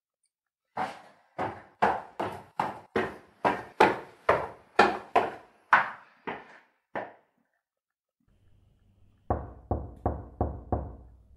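Footsteps: about fifteen quick, sharp steps. About two seconds later come five duller knocks on a door, with a faint low hum beneath them.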